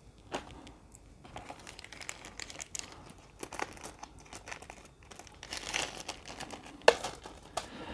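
Plastic wrapping crinkling and crackling, with light clicks, as a shrink-wrapped card deck and small bagged game pieces are handled in a plastic insert tray. The crackling gets busier toward the end, and there is one sharp click near the end.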